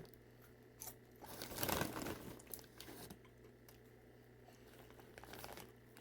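Crinkly popcorn snack bag rustling as a hand reaches in for popcorn, loudest from about one to two seconds in, with a few small crackles and another short rustle near the end.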